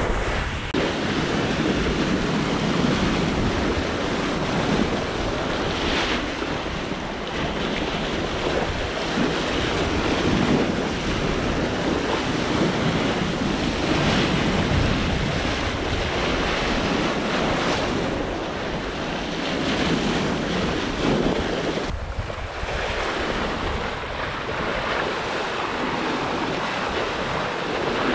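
Wind buffeting the microphone over the rush of sea water around a Hallberg-Rassy 54 sailing yacht running fast downwind. The noise swells and eases, and its character changes abruptly about a second in and again near 22 seconds.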